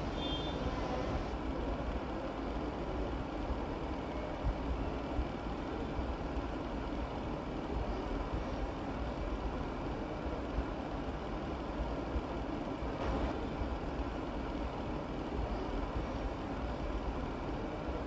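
Steady low rumble and hiss of a commercial kitchen's background noise, with a few light knocks.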